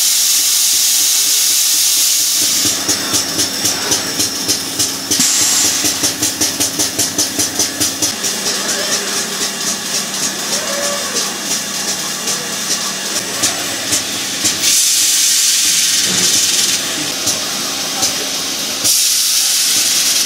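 Abrasive belt grinders deburring cast metal parts: a loud hiss of abrasive on metal, steady in some stretches and pulsing rapidly in others, over a steady machine hum.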